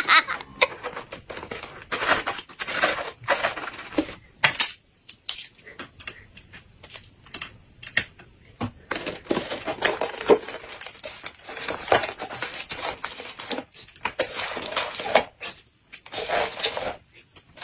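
A kitchen knife prying and scraping at the lid of a metal tin can, with irregular metallic clicks and scrapes as the can is worked open and handled.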